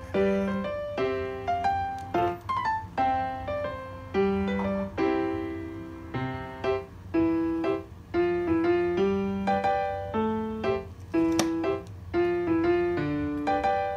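Background piano music: a gentle melody of single notes and chords, each note fading after it is struck.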